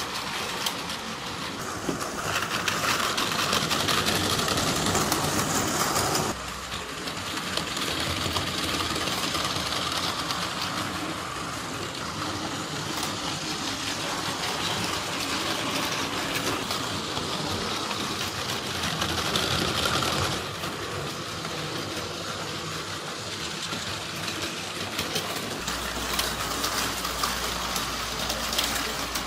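Several battery-powered Plarail toy trains running on plastic track: small electric motors whirring with a dense clicking clatter of wheels on the rails. It swells louder twice for a few seconds.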